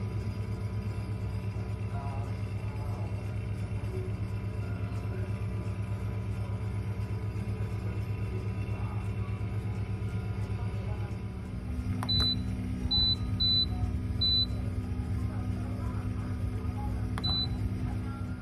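Oven fan running with a steady low hum. Later on, the oven's control panel gives five short high beeps as its buttons are pressed to lower the temperature to 210 °C.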